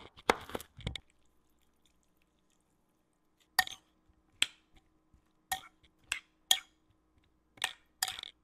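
Metal spoon clinking against a bowl while tossing chopped tomatoes and onion in a dressing: about seven separate sharp clinks in the second half. A few quick knocks come right at the start.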